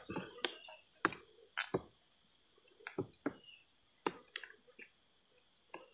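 Steady high-pitched drone of forest insects, with scattered sharp clicks and taps from hands working at fishing tackle.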